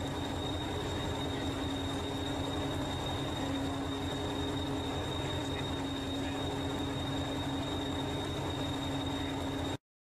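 Diesel engine of Hastings diesel-electric multiple unit 1001 idling steadily: a low, even drone with a thin steady whine above it. It cuts off suddenly near the end.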